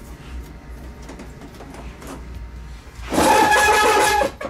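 Soft handling clicks and rustles from a TV's plastic outer bezel being wiggled by hand. About three seconds in comes a loud scraping squeal lasting about a second, the plastic straining against what still holds it: a missed screw or retaining clips.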